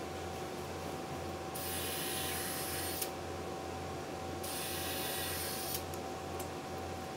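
Cordless drill/driver running in two short trigger pulls of about a second and a half each, a high whine, driving screws into 2x4 framing studs; each run ends with a small tick.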